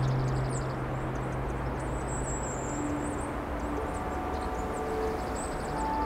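A steady low drone with a hum that fades out within the first couple of seconds, under faint high-pitched chirps. Soft sustained musical tones come in about halfway through.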